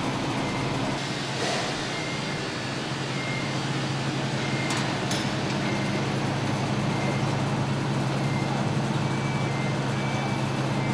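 Diesel engine of heavy construction equipment running steadily, with a backup alarm beeping about once a second while the machine reverses. There are a couple of brief clicks near the middle.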